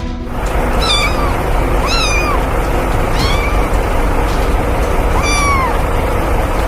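A cat meowing four times, short arching meows about a second or two apart, over a steady noisy background with a low rumble.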